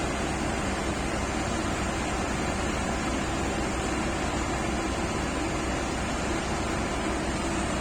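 Heavy diesel engine running steadily, with an even hiss of rain over it.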